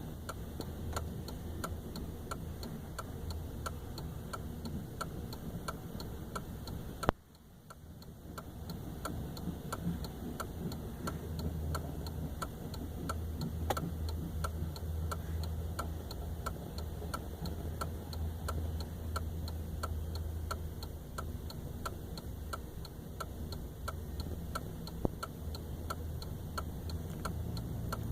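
Freight car wheels of a slow-moving train clicking steadily over the rail joints, about two to three clicks a second, over a low rumble. About seven seconds in there is a single sharp loud click, and the sound drops out briefly after it.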